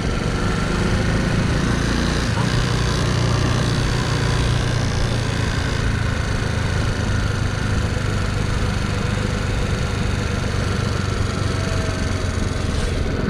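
Honda C90 step-through motorcycle's small single-cylinder four-stroke engine running steadily while riding, with wind and road noise on the microphone.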